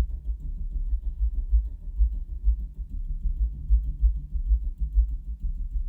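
Bass-heavy music played through a REL T9i subwoofer, heard as a deep pulsing low-end rumble with little above it.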